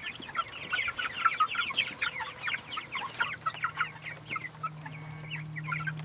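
A flock of young Cornish Cross broiler chicks peeping, many short falling cheeps overlapping, as they go after fresh feed. About halfway through a steady low hum joins in under the peeping.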